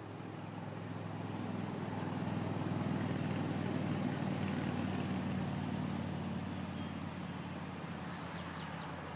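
A motor vehicle passing on a nearby road: a low hum that grows to its loudest about three to four seconds in, then slowly fades away.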